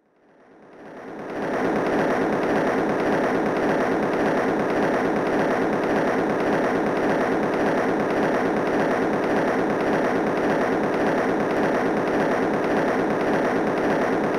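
Impact-sound tapping machine running: camshaft-lifted steel hammers drop onto the floor in a fast, even rhythm, the standard test source that simulates footfall. The hammering fades in over the first second or two, then holds steady.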